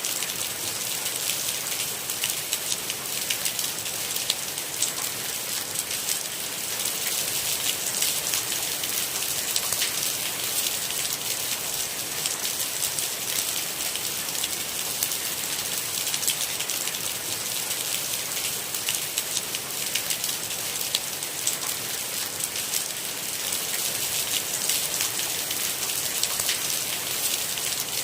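Steady rain falling, a dense hiss strongest in the high range, flecked with the fine ticks of individual drops.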